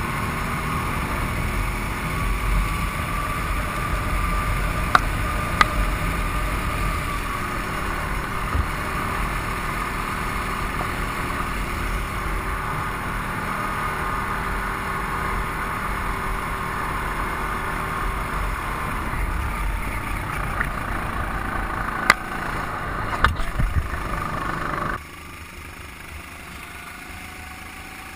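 Go-kart engine noise, a steady rasp with a wavering whine and a few sharp clicks. About three seconds before the end it drops suddenly to a quieter engine sound with a faint, slowly rising whine.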